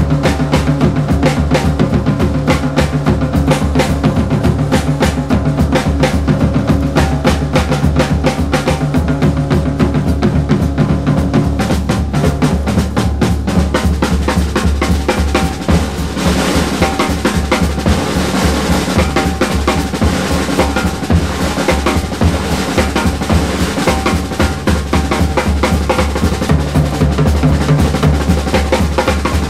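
Background music driven by fast, steady drumming.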